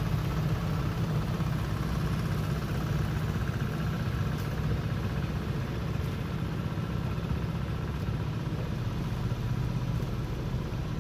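Outrigger fishing boat's engine running steadily under way, with a constant rush of water and wind.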